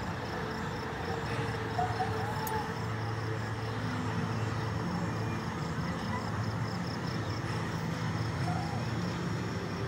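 Distant outdoor night ambience of a carnival beside a parking lot: a steady low hum of ride machinery and traffic, with faint far-off voices. A high insect chirp pulses about three times a second.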